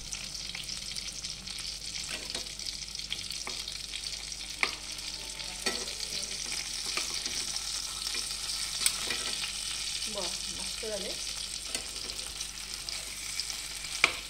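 Marinated chicken leg pieces sizzling steadily in hot oil and butter in a non-stick kadai, turned over halfway through pan-frying. A metal slotted spatula taps and scrapes against the pan several times, with the sharpest tap near the end.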